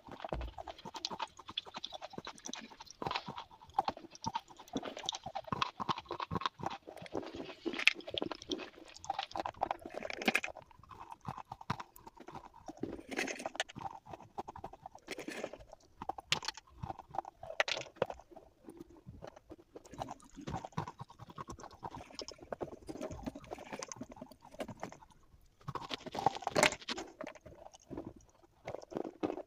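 Slate pencils being bitten and chewed close up: irregular sharp crunches and snaps with gritty chewing between them, with a louder flurry of crunching near the end.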